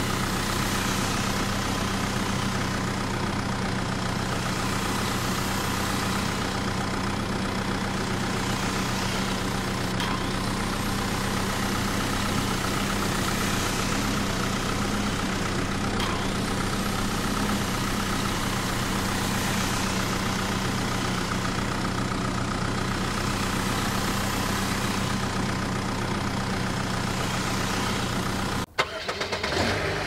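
Small motor driving a spinning saw blade, running with a steady, unchanging hum; the sound cuts off abruptly about a second before the end.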